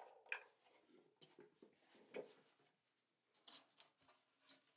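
Near silence: quiet room tone with a few faint, short clicks and rustles of small objects being handled.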